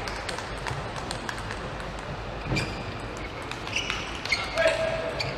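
Light, sharp clicks of a celluloid table tennis ball bouncing and being gathered between points, with a few short squeaks of shoes on the court floor about halfway through, over the low murmur of an arena.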